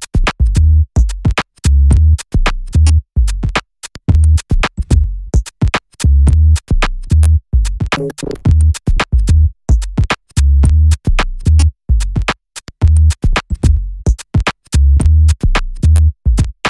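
Electronic background music with a heavy bass line and a drum-machine beat, chopped so that it cuts sharply in and out many times a second.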